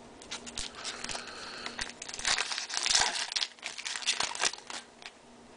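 Crinkling and rustling of a trading-card pack's foil wrapper and cards being handled, with a louder stretch of crinkling midway.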